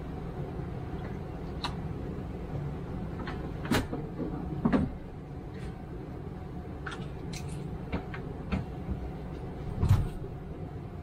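Scattered knocks and clicks of items and laundry being handled at a tumble dryer, about eight in all, the loudest near the end, over a steady low hum.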